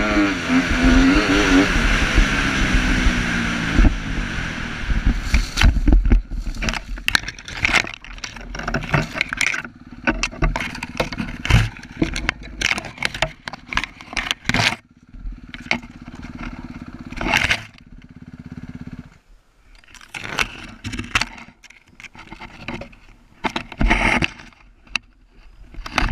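Kawasaki KX250F four-stroke single-cylinder dirt bike engine running hard with a wavering note that dies away about four seconds in. Then come many sharp knocks, scrapes and crashes of brush and branches against the bike, with the engine idling steadily for a few seconds in the middle.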